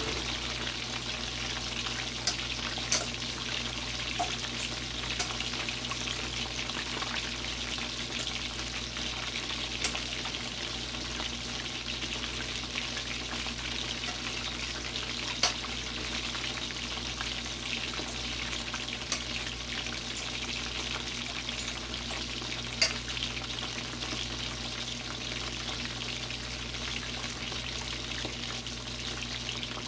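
Chicken leg quarters frying in hot oil: a steady sizzle broken by sharp pops of spattering oil every few seconds, the loudest about 15 and 23 seconds in.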